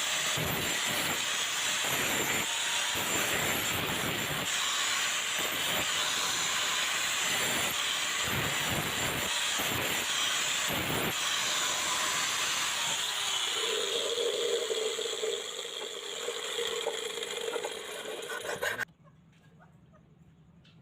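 Abrasive grinding or sanding on the rusty steel of an old knife: a steady, harsh hiss that cuts off abruptly near the end.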